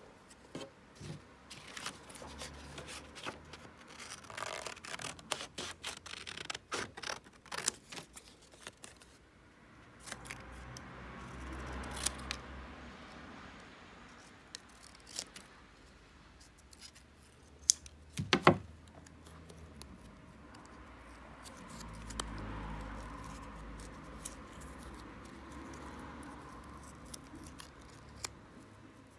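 Small children's scissors snipping thin printed card, a quick run of cuts in the first third and scattered snips after, with the rustle of card pieces being handled between cuts. A sharp double clack comes about two-thirds through.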